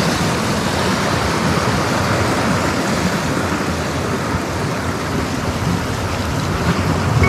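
Steady rushing noise of sea surf washing against the shore, with wind on the microphone.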